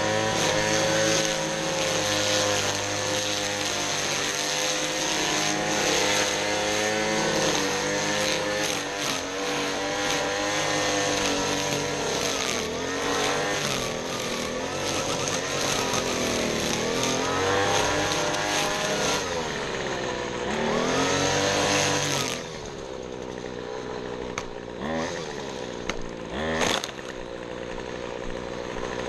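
Small petrol engine of lawn-care equipment running at high throttle, its pitch dipping and recovering under load. About two-thirds through it drops back to a lower, quieter idle, with two quick revs near the end.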